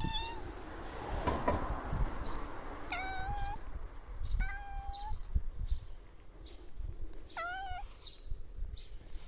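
Tabby cat meowing four times, short calls spread a second or more apart.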